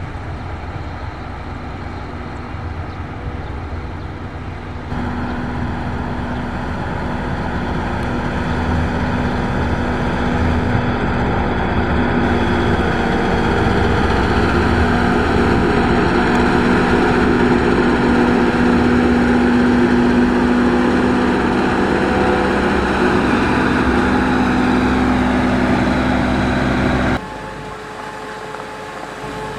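Diesel engine of a Caterpillar 140H motor grader running steadily under load. It gets louder about five seconds in and drops away suddenly near the end.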